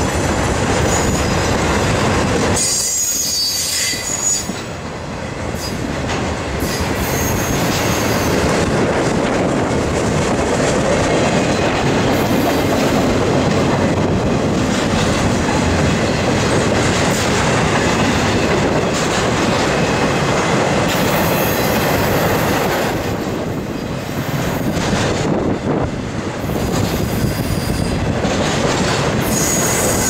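Intermodal freight cars rolling past: a steady rumble and clatter of steel wheels over the rails, with a high wheel squeal a few seconds in and again near the end.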